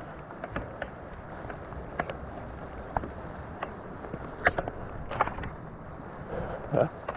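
Fezzari Kings Peak fat bike rolling over rough, wet canyon ground: irregular sharp clicks and knocks from the tyres and bike over a steady low rush.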